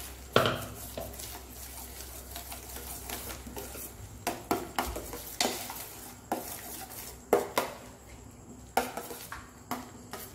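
Metal spoon stirring thick tomato puree in a stainless steel pan, scraping the bottom and knocking against the pan's sides about once a second at uneven intervals. The puree is being cooked down until the oil separates.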